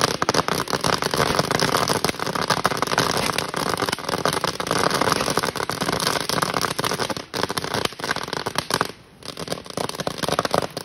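Fireworks going off aboard a burning boat: a dense, continuous crackling and popping, with brief lulls about seven and nine seconds in.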